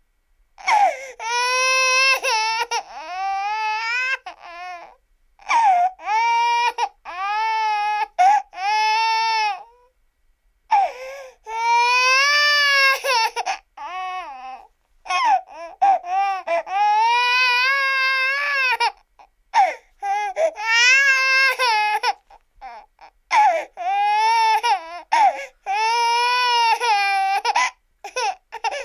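A baby crying in repeated wails, each about one to three seconds long, broken by short gasps for breath.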